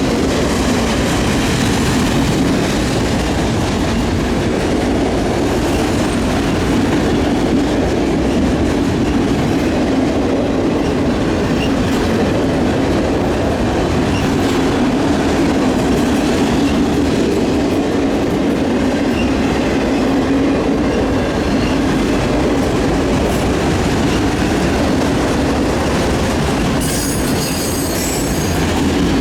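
Freight cars of a long CSX freight train rolling past, a steady loud rumble and rattle of steel wheels on the rails. A brief high-pitched wheel squeal rises over it near the end.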